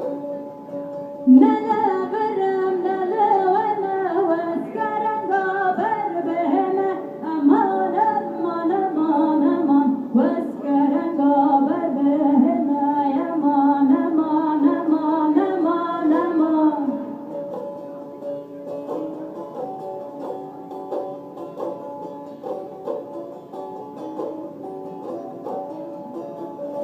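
Kurdish folk song performed live: a woman's singing voice over plucked string accompaniment. About 17 seconds in the voice stops and the plucked strings play on alone, more quietly.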